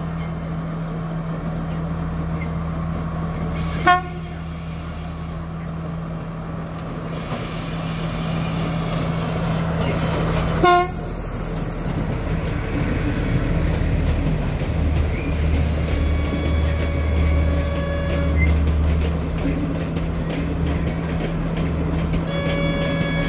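Diesel passenger train running over a stone viaduct: a steady engine drone and the rumble of wheels on the rails, heavier in the second half as it passes close. Two short horn toots, about four seconds and eleven seconds in.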